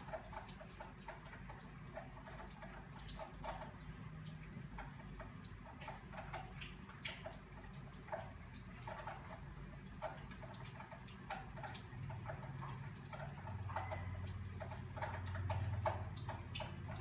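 Crochet hook working yarn through single crochet stitches: light, irregular clicking, several clicks a second. A low hum grows louder in the last few seconds.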